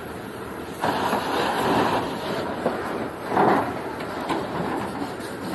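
Fire hose jet spraying water onto burning debris: a steady rushing noise that swells louder about a second in and again briefly after three seconds.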